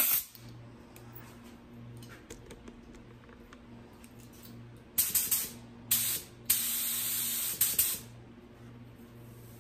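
Gravity-feed primer spray gun (Snap-on Blue Point, 1.4 nozzle) triggered in bursts of hissing air: a brief blast at the start, two short ones about five seconds in, then a steady hiss lasting about a second and a half.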